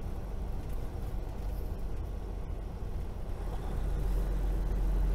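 Freightliner semi truck's diesel engine running under way, with road noise, as heard inside the cab: a steady low rumble that grows louder about four seconds in.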